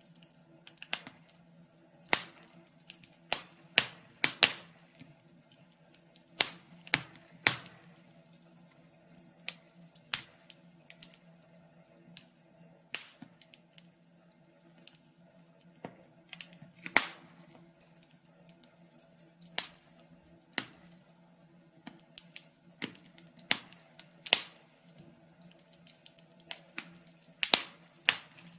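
Wood fire crackling: sharp, irregular pops and snaps, sometimes in quick pairs, over a faint steady low hum.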